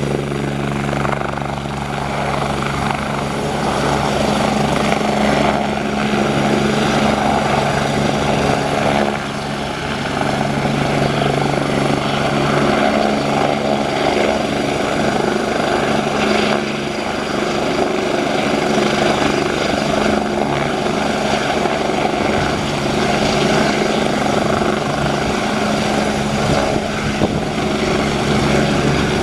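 A 1994 BK-117 twin-turbine helicopter hovering low: a steady turbine whine under the rapid beat of its main rotor.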